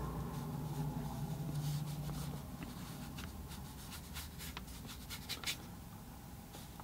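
Flat watercolor brush dabbing and stroking on paper: a faint scratchy brushing, with a few short soft ticks in the middle.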